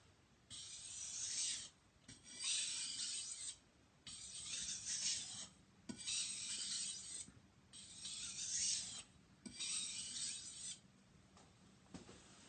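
Knife edge stroked back and forth across a wet 3000-grit water stone under light pressure: six long, even sharpening strokes, each a little over a second, with short pauses between, going quieter near the end.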